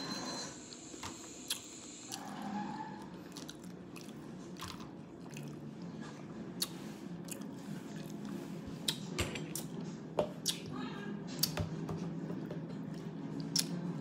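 Close-up chewing and crunching of a hard-shell taco, with scattered sharp clicks and crackles over a steady low hum.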